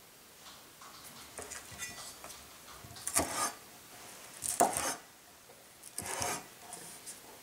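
Chinese cleaver cutting a scallion on a wooden cutting board: light handling sounds, then three louder cuts with a scrape of the blade on the board, about a second and a half apart.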